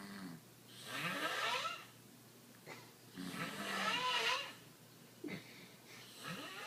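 A person snoring, about two snores about three seconds apart. Each is a low buzzing stretch followed by a higher tone that rises and then falls away.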